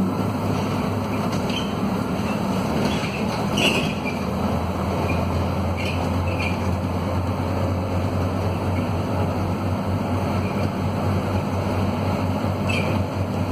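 Scania DC9 inline five-cylinder diesel of a Scania K230UB city bus, heard from inside the cabin, running steadily under load as the bus climbs a hill, with a few faint rattles and clicks. The bus is in the rough, worn state typical of these vehicles.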